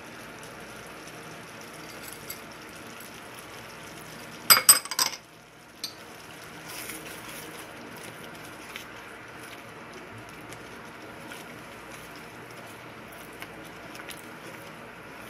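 A glass bowl clinks sharply several times against a metal pan about four and a half seconds in, as fried garlic is tipped into the sauce. Under it runs the steady hiss of a milk sauce simmering, and a spatula then stirs through it.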